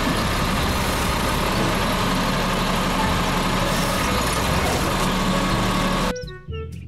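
Automated side-loader garbage truck running steadily, its engine and hydraulics working as the mechanical arm lifts a wheelie bin up to tip it into the hopper. The sound cuts off about six seconds in.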